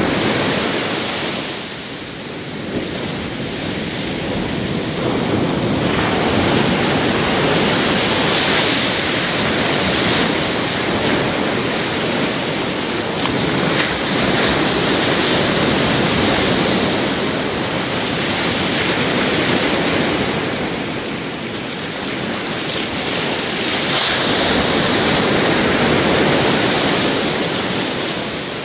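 Ocean surf breaking and washing up a beach: a continuous rushing hiss that swells as each wave breaks, about every eight to ten seconds, and eases between sets.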